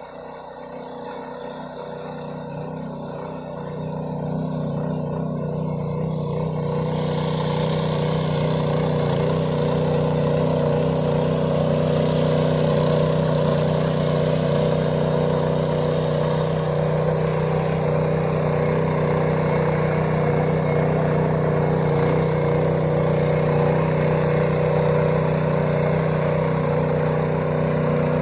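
A 7 hp power weeder's small single-cylinder petrol engine runs steadily under load as its rotary tines till the soil. It grows louder over the first several seconds, then holds a steady drone.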